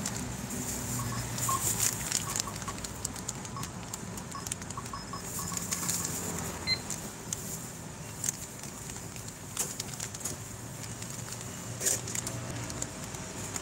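Shop checkout noises: scattered clicks, knocks and rustling as items are handled at the counter, over a steady low background hum, with a short high beep about seven seconds in.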